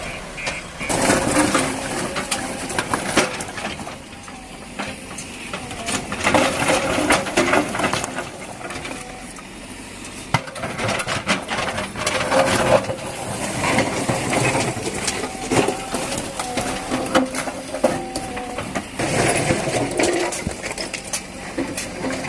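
JCB 3DX backhoe loader digging and loading pond mud into a Tata 1613 tipper's steel body: bursts of crunching and clattering with sharp knocks, as the bucket works and the load drops, over the machine's running engine and hydraulics.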